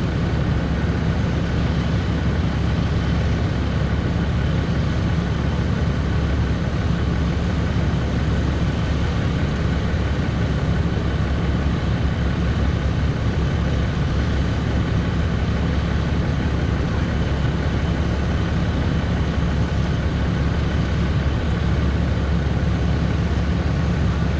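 Ram plow truck's Cummins inline-six turbo-diesel idling steadily, a low even rumble.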